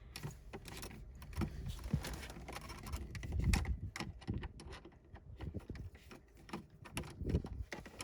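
Screwdriver backing out the flat-head screws that hold the car's radio in the dash: irregular small metallic clicks, taps and scrapes.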